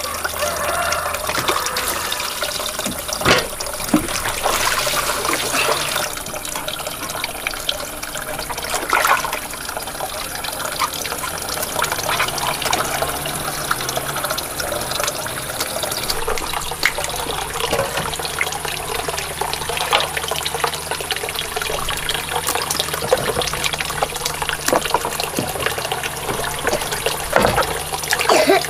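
Water running steadily, trickling and splashing without a break, with scattered small clicks and knocks over it.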